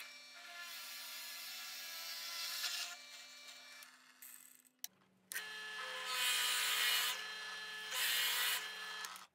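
Drill press motor running with a steady hum while its bit bores into a wooden block, the cutting noise coming in several spells. The sound drops out briefly near the middle and resumes with the hum at a slightly lower pitch.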